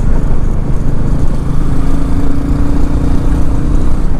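Motorcycle running at road speed, its engine under heavy wind rumble on the microphone. A steady hum stands out for a couple of seconds in the middle.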